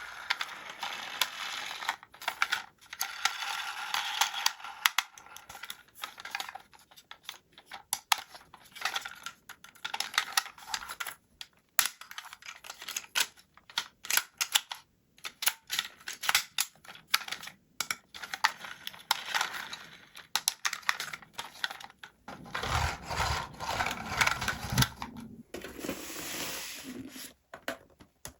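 Hands handling plastic toys and their packaging: a run of small clicks and taps with rustling between them, and heavier knocks and crinkling toward the end.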